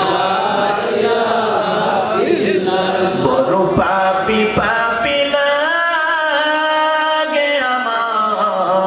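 A preacher's voice chanting melodically in the sung style of a Bengali waz sermon, with long held, wavering notes; one note is held for about two and a half seconds past the middle.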